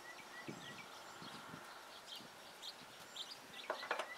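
Birds chirping in the background: repeated short chirps and quick rising calls. A brief cluster of sharp clicks comes near the end. No refrigerant hiss is heard.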